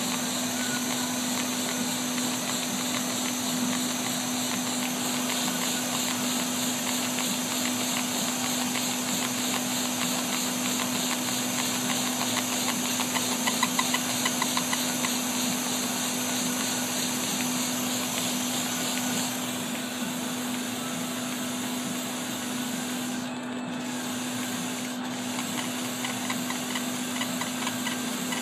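60-watt LaserPro laser engraver running: a steady hiss of air and fans over a low hum, with a run of rapid ticks about halfway through and again near the end. The hiss drops noticeably about two-thirds of the way in.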